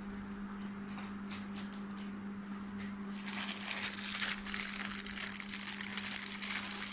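Clear plastic jewellery packets crinkling loudly as they are handled, starting about three seconds in; before that only a few faint rustles over a steady low hum.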